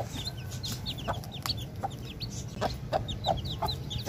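Aseel hen clucking in short low notes, repeated every half second or so from about a second in, while her day-old chicks peep continuously in short, high, falling chirps.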